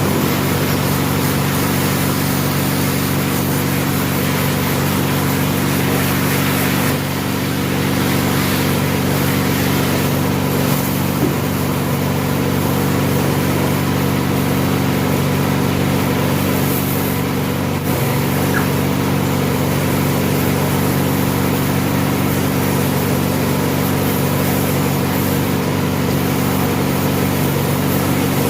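Pressure washer (jet cleaner) running steadily, its motor humming under the hiss of the water jet as soapy carpet is rinsed. The sound dips briefly twice.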